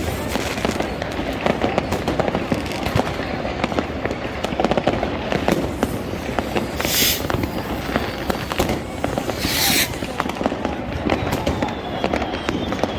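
Many fireworks and firecrackers going off at once: a dense, continuous run of bangs and crackling, with two short hissing bursts about seven and nine and a half seconds in and a faint whistle near the end.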